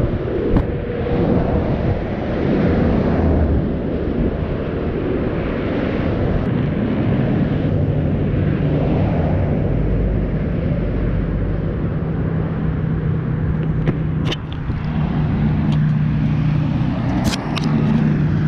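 Road noise and wind rumbling over a GoPro lying on the highway surface, with a steady engine hum coming in about halfway through. A few sharp knocks near the end as the camera is picked up off the asphalt.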